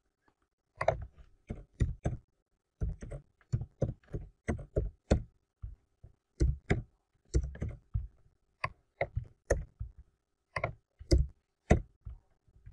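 Typing on a computer keyboard: separate, irregular keystrokes with a dull thud, about two or three a second, in short runs broken by brief pauses.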